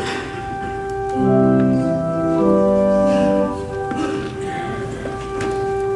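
Organ playing slow, held chords over one sustained note, the chord changing every second or so.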